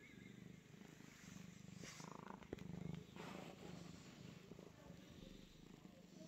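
Domestic cat purring faintly while being stroked, a low pulsing rumble in stretches with short breaks. A sharp click about two and a half seconds in, with some rustling around it.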